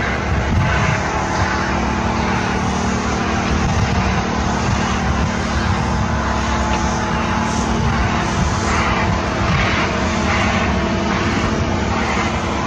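Cat 160M motor grader's diesel engine running steadily under load, with a broad rushing scrape of snow being pushed by its front plow and blade that swells a few times in the second half.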